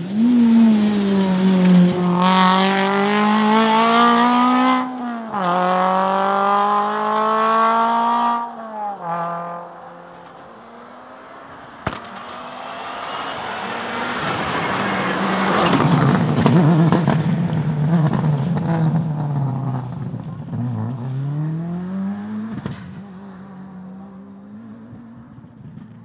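A small rally car's engine revving hard up through the gears, its pitch climbing and dropping back at each shift. After a cut, a Subaru Impreza WRC rally car's turbocharged flat-four approaches at full throttle, passes loudest in the middle and fades away.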